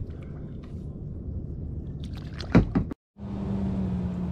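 Kayak paddling on calm water with one sharp knock about two-thirds of the way through. After a brief break, a distant jet ski engine hums steadily.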